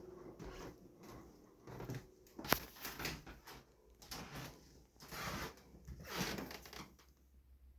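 Scuffing and rustling noises of someone moving about, with one sharp click about two and a half seconds in.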